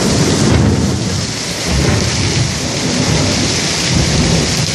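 Rolling thunder over the steady hiss of a heavy downpour. The rumble swells and ebbs several times and dies away near the end.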